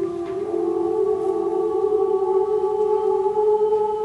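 Women's choir holding long sustained notes in several pitches at once, with the lowest voices sliding up to a higher note about half a second in and again near two seconds.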